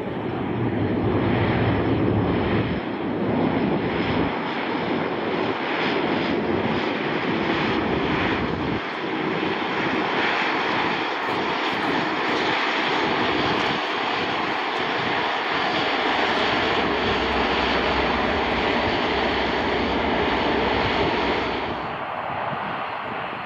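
Bombardier Q400 turboprop airliner on its landing roll: loud, steady engine and propeller noise from its two Pratt & Whitney PW150A turboprops, with a faint tone that slowly sinks in pitch. The noise drops away near the end.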